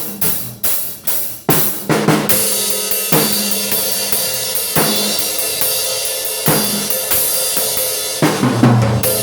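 Acoustic drum kit played: snare, toms and a kick drum with a ripped head struck in a steady beat. A crash cymbal and hi-hat wash in from about two seconds in, and a run of heavier low drum hits comes near the end.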